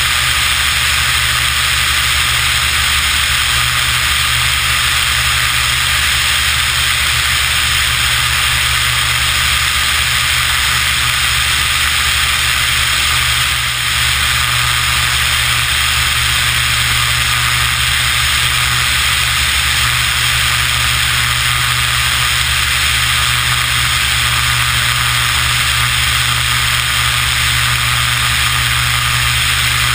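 Beechcraft BE33 Bonanza/Debonair's flat-six piston engine and propeller droning steadily in low-level flight, under a loud rush of wind over a camera mounted beneath the wing.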